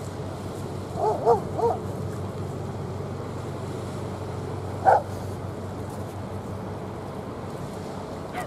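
Steady low rumble of a warship and its tugs under way, mixed with wind, broken by three short animal calls about a second in and one louder call near the middle.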